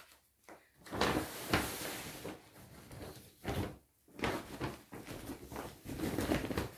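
Household handling sounds of someone fetching a shopping bag: irregular knocks and rustling, with a short pause about halfway through.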